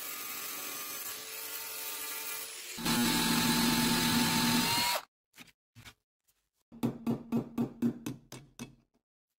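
A power tool running steadily, getting louder about three seconds in, then stopping abruptly. It is followed by a quick run of short bursts, about four a second.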